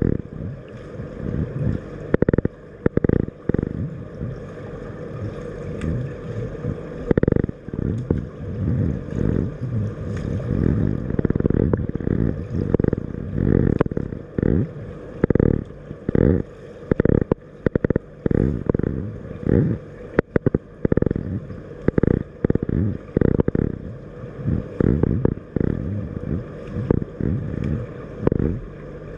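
Swimming pool water heard from underwater: a muffled, low churning with irregular thumps and gurgling surges.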